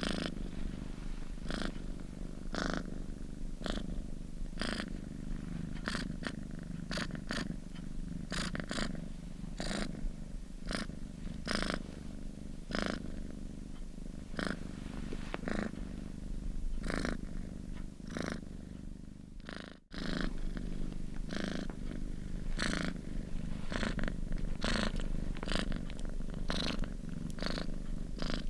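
Domestic cat purring steadily close up: a continuous low rumble with short crisp pulses repeating about once or twice a second. The sound cuts out for an instant about 20 seconds in.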